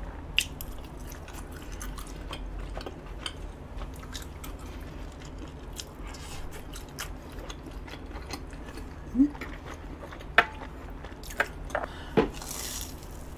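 A person chewing and biting into a battered hot dog: soft crunches and wet mouth clicks, with a few sharper clicks about ten and twelve seconds in.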